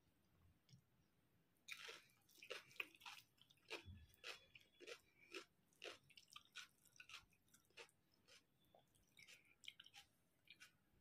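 Close-up mouth sounds of someone chewing a mouthful of rice and curry: wet smacking and clicking, starting about two seconds in, coming thick and fast for several seconds, then sparser.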